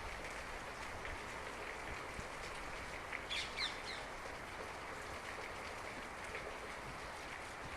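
Steady rain falling, an even hiss with many small drip ticks. A bird gives a short burst of chirps about three seconds in.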